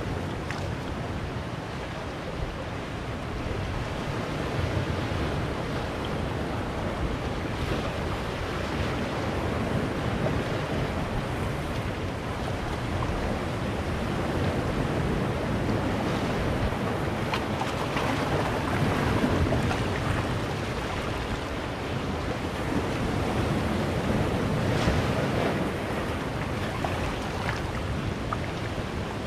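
Sea surf washing in among boulders on a rocky shore: a continuous rush of water that swells and eases every few seconds.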